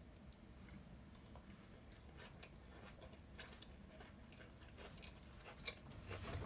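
Near silence: room tone with faint, scattered light clicks that come a little more often and louder near the end.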